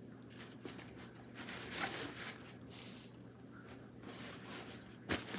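Clothing rustling in short scattered bursts as it is handled and packed into a bag, with a short knock about five seconds in, over a faint steady low hum.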